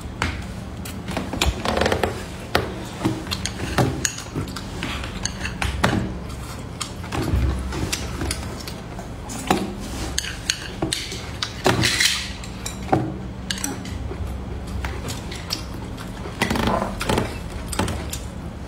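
Close-up eating sounds: a person chewing stir-fried meat and squid with wet mouth clicks, and chopsticks clicking against a plate, in irregular short clicks over a low steady hum.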